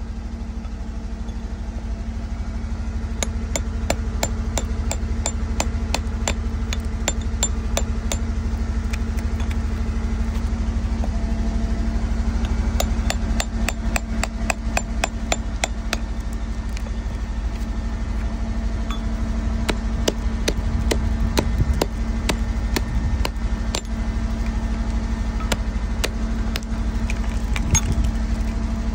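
Sharp taps of a steel chisel and rock hammer chipping at hard rock to loosen an agate nodule. The taps come in quick runs of several a second through the first half and thin out later, over a steady low motor hum.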